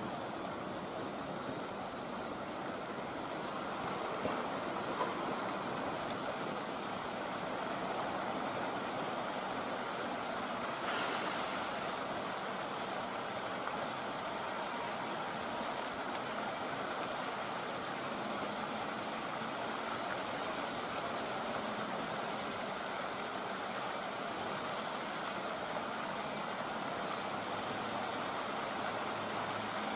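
Steady running noise from a standing Tobu 8000 series electric train, with a soft knock about eleven seconds in.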